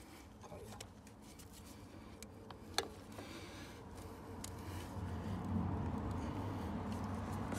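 Faint plastic clicks and scrapes as a Philmac universal transition coupler is worked onto buried MDPE water pipe and its nut turned by hand, with one sharper click about three seconds in. A low rumble builds over the last few seconds.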